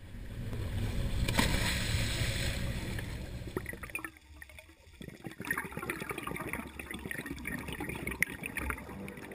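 Live camera sound from a dive boat: a steady low engine rumble with wind and water noise, loudest about a second and a half in. After a cut at about four seconds comes quieter underwater ambience of many small crackles, clicks and bubbling.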